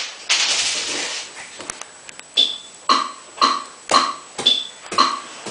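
A burst of hissing noise, then a steady rhythmic beat of about two pulses a second that starts about two seconds in.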